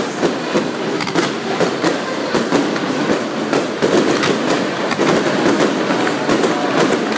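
Ground fountain fireworks hissing, with a dense run of irregular crackles and pops.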